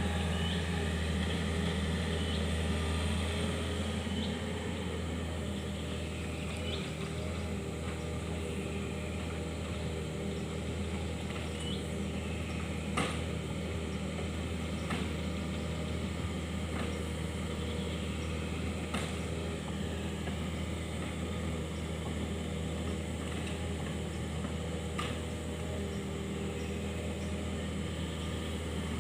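Kobelco SK 50 P mini excavator's diesel engine running steadily, with a few sharp clicks along the way.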